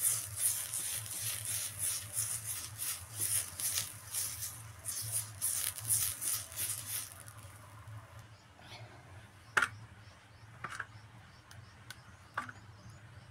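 Oil being brushed over a metal wok with a frayed green plant-stalk brush: scratchy swishing strokes, about two a second, for the first seven seconds or so. After that it goes quieter, with a few sharp clicks.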